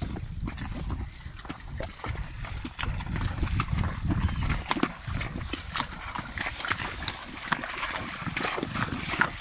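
Horses' hooves splashing through shallow seawater at a walk, in quick, irregular splashes.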